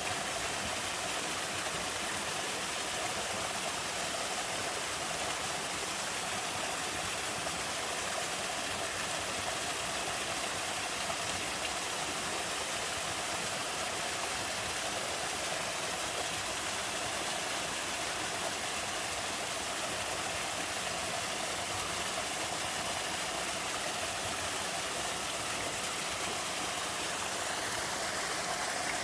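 Straight-drop waterfall pouring steadily in a mountain stream: a constant rushing hiss of falling water.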